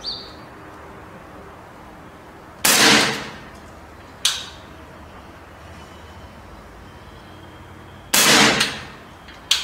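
Evanix K550 pre-charged pneumatic revolver-action air rifle firing two shots about five and a half seconds apart, each a sharp report with a short ringing tail. A quieter sharp click follows each shot about a second and a half later.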